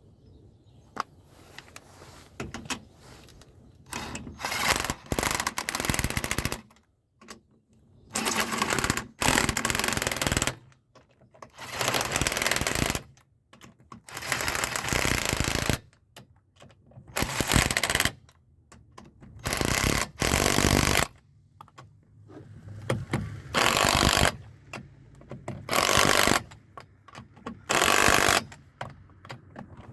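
Impact wrench running in about ten short bursts of one to two seconds, spaced a couple of seconds apart, as lug nuts are run on and tightened.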